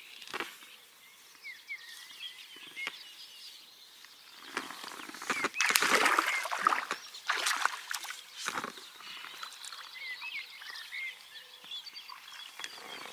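Water splashing as a hooked pike thrashes at the surface while being landed, loudest for a couple of seconds about halfway through, with a few sharp knocks. Birds chirp in the background.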